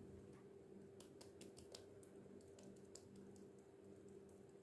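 Near silence: faint, scattered soft taps of fingertips patting the skin of the face, over a low steady hum.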